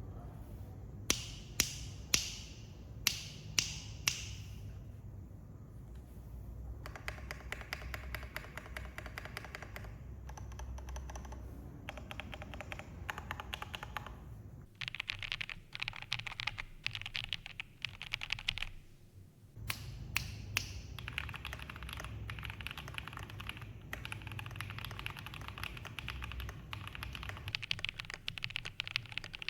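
Typing on an Akko Top 75 mechanical keyboard. A handful of single, louder key presses come over the first few seconds, then fast continuous typing with brief pauses.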